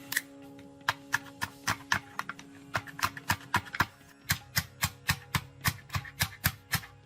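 A rapid series of sharp taps or knocks, about three to four a second, strongest in the second half, over faint steady background music.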